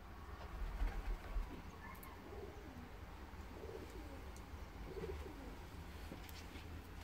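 Pigeon cooing near a nest with a hatching egg: a few short, low coos spaced over several seconds. A low rumble about a second in is the loudest sound.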